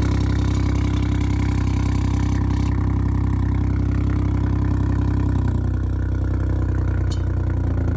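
Ford Fiesta Mk8 ST's 1.5-litre three-cylinder engine idling through a Scorpion GPF-back exhaust, with the valve in the tailpipe rattling: its clip is not pressing hard enough on the valve to hold it still. The low engine note shifts slightly about five and a half seconds in.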